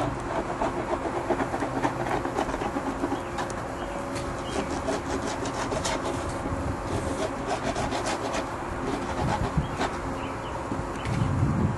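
Hand tool rasping and scraping along the freshly jigsawed edge of a plastic Porsche front bumper cover in short, irregular strokes, cleaning up the cut.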